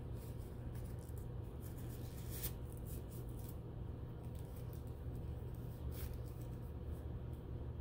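Sterile gloves being pulled on and their paper wrapper handled: soft rustling, with two brief crinkles about two and a half seconds in and again around six seconds, over a steady low room hum.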